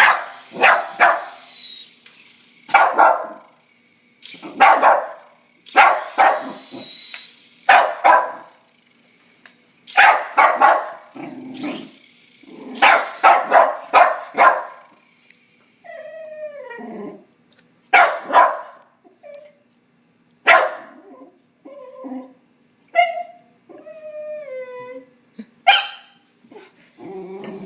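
A dog barking repeatedly, a bark or quick double bark every second or two. In the second half it gives several high whining yelps that slide down in pitch between barks. A thin high motor whine is faint at the start.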